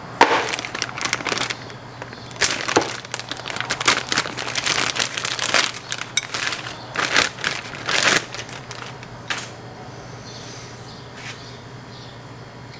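A cardboard parts box and its packaging crinkling and crackling as the new sway bar link is handled and taken out, a busy run of short crackles and clicks that dies away about eight seconds in, leaving a low steady hum.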